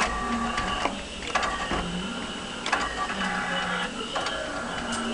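Claw machine's gantry motors whirring in several short runs as the claw is steered, each run starting and stopping with a click.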